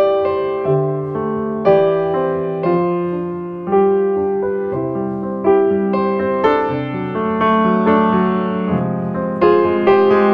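Background piano music: slow, gentle notes struck and fading, a new note or chord about every second.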